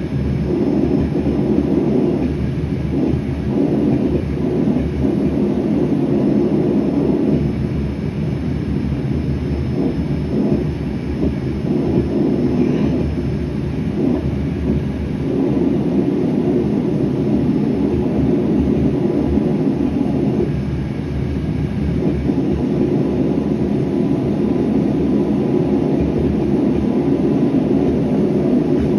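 Propane gas forge burner running with a steady, loud, low roar.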